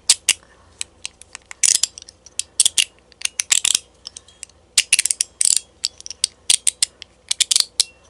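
Mechanical slider fidget toy being slid back and forth by hand, its ball detents locking in with sharp metallic clicks that come in quick irregular clusters.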